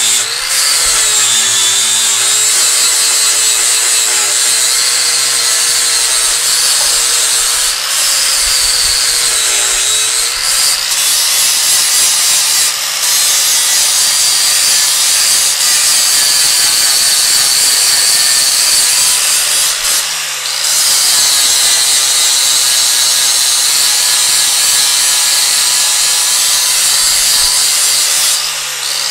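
DeWalt angle grinder with an abrasive disc grinding down a weld on a steel chrome bumper, running continuously. The grinding sound dips briefly a few times as the disc eases off the metal.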